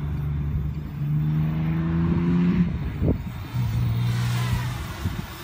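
Small drone's motors humming in flight, the pitch stepping up, breaking off and coming back lower as the throttle changes. A brief click about three seconds in.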